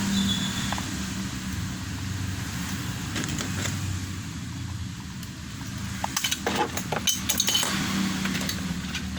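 AA batteries clicking and clinking against each other and the plastic battery compartment as they are fitted into a toy dinosaur. A few light clicks come about three seconds in and a quick cluster about six to seven and a half seconds in, over a steady low background hum.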